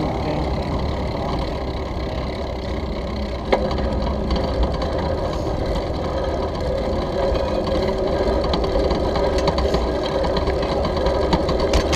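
Bicycle riding over brick paving, heard from a handlebar-mounted GoPro Hero 3+: a steady low rumble with a fast rattle from the bike and its camera mount. There is a sharp knock about three and a half seconds in and a few small clicks near the end.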